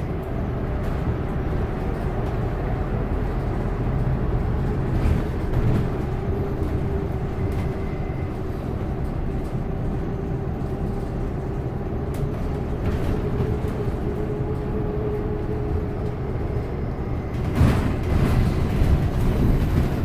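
Inside a San Francisco Muni city bus on the move: a steady engine and road rumble with a constant whine. There is a louder patch of knocks and rattles near the end.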